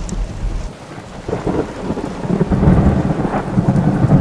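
Rain on a moving car, heard from inside the cabin as a steady hiss with a low rumble that grows louder about a second and a half in.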